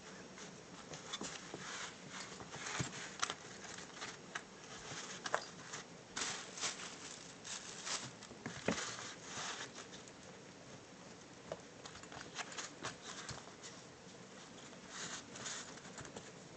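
Maltipoo puppy chewing and pawing at a black GPS case on carpet: irregular scratchy rustles and scuffs with a few small knocks.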